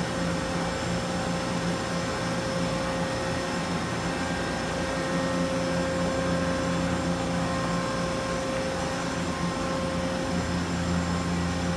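Steady machinery hum with a few constant tones, even and unbroken, with no stroking rhythm or knocks.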